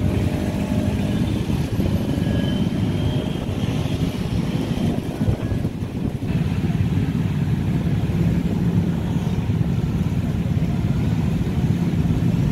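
Road traffic noise, mostly many small motorcycle engines idling and running at low revs close by, a steady low rumble.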